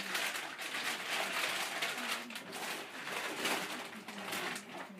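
A kitten's claws scratching and scrabbling at a sisal-rope cat-tower post and its carpeted base as it grabs at a hanging fluff ball: continuous rasping with many small scratches.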